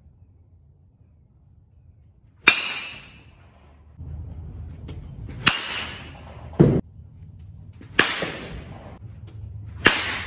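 Baseball bat striking pitched balls in a batting cage: four sharp cracks about two to three seconds apart, each with a short ringing tail, and a duller thud between the second and third.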